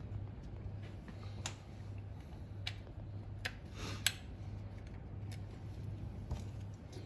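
Scattered light metallic clicks and taps, the loudest about four seconds in, from small parts being handled and fitted while the clutch self-adjuster ratchet and pawl are changed in a Ford Cortina Mk5 pedal box. A steady low hum runs underneath.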